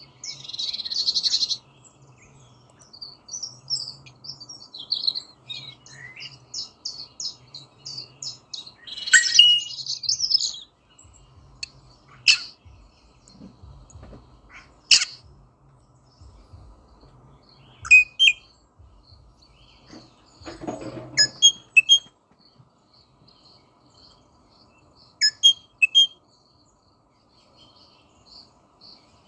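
Rosella calling: a run of quick, high chirps and whistles, with louder sharp calls scattered through. The loudest come right at the start and about nine seconds in.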